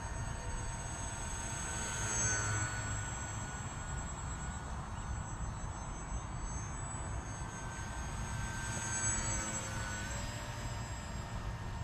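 Micro Ebbi RC plane's Suppo 2204 brushless motor and propeller whining as it flies past twice. The pitch drops as it goes by, about two seconds in and again near the end.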